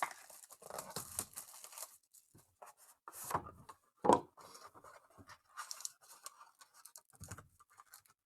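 Trading cards and their plastic sleeves and packaging being handled: light rustling and scraping with a few sharp clicks and taps, the loudest about four seconds in.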